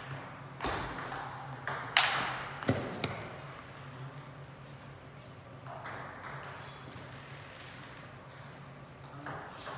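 Table tennis rally: the ball clacking sharply off the paddles and table in a quick run of hits over the first three seconds, the loudest about two seconds in. After the point ends there is only a steady low hum.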